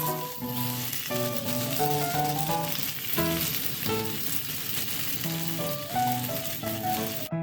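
Food sizzling as it fries in a pan, under background music made of a melody of held notes.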